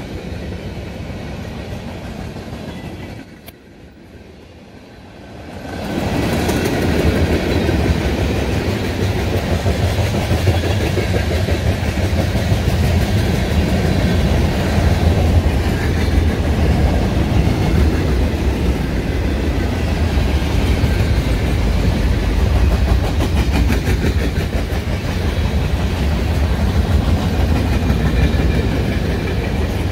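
Freight train cars rolling past: a steady rumble with the clickety-clack of steel wheels over the rail joints. It drops quieter for a couple of seconds about three seconds in, then comes back louder and holds steady.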